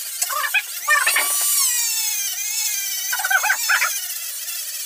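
Dremel rotary tool running at high speed, sanding the aluminium frame of a Barnett Commando crossbow. Its whine sags in pitch as it is pressed into the metal and then recovers, with rough grinding bursts where it bites, about half a second in, around one second, and again from three to four seconds.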